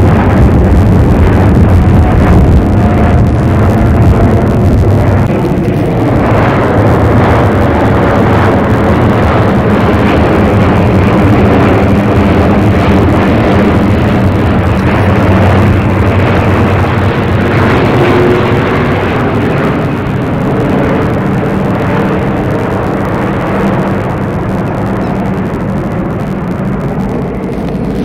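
Twin-engine jet airliner passing low overhead: a loud, steady engine roar and rumble that slowly fades over the last ten seconds or so.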